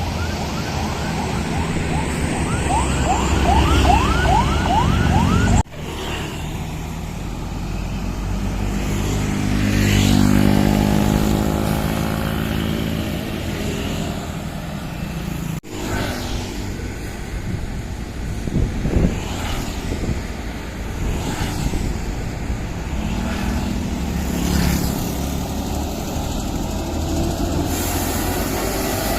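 Tour buses running past with their Basuri multi-tone 'telolet' horns playing rapid rising and sliding tunes over the diesel engines' rumble. The sound cuts off abruptly twice and restarts.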